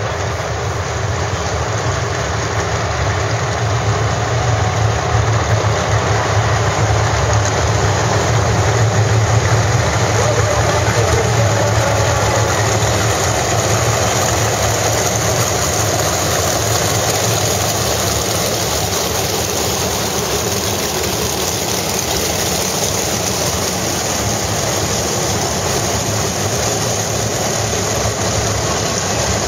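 A field of winged sprint cars' 410 cubic-inch V8 engines running together at low speed and idle, a dense, steady, loud rumble that swells a little about nine seconds in.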